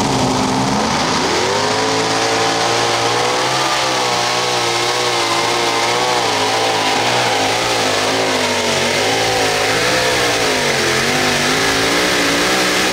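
Modified pulling tractor's engine at full throttle on a pull. Its pitch climbs steeply about a second in, then holds high with a constant wavering rise and fall. It dips briefly near the end, then climbs again.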